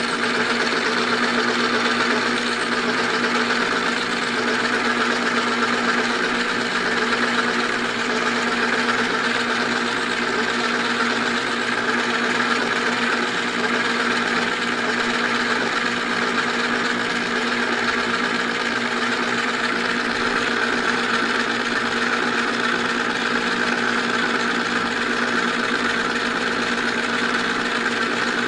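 Manrod MR 301 bench lathe running steadily while machining a workpiece, a constant motor and gearing hum with cutting noise over it.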